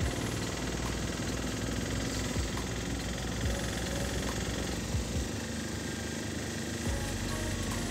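Auto-rickshaw engine running steadily under way, heard from inside the open cabin, with road and wind noise.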